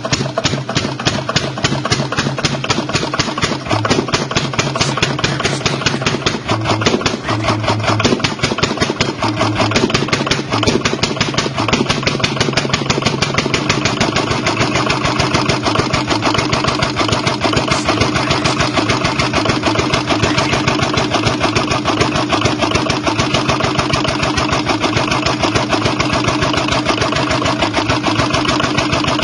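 Old diesel engine idling with a fast, even diesel clatter of firing strokes. The loudness is a little uneven for the first ten seconds or so, then it runs steadily.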